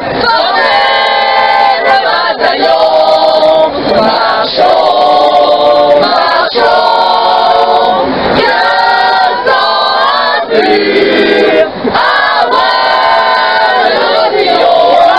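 A group of football fans, men and women, singing a chant together in loud chorus, in phrases broken by short breaths.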